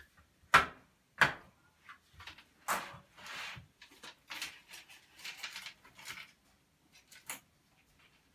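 Double-hung sash window being worked by hand: two sharp knocks about half a second apart near the start, then a few seconds of scraping and rustling at the sash, with a click near the end.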